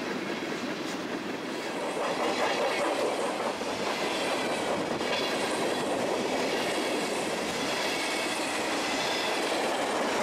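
Empty ethanol tank cars of a freight train rolling past close by, their steel wheels running on the rails in a steady din that gets louder about two seconds in.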